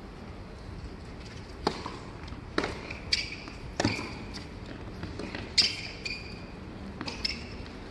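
Tennis rally on a hard court: about five sharp racket strikes and ball bounces, several followed by brief high squeaks of shoes on the court surface.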